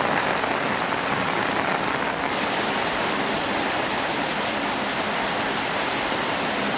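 Heavy rain pouring steadily, mixed with the rush of floodwater running through a flooded gutter and channel. The hiss dulls slightly about two seconds in.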